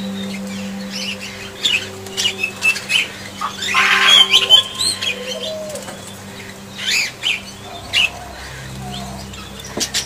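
Aviary budgerigars chirping, with wings flapping as birds fly on and off; a loud flurry of wingbeats and chatter about four seconds in.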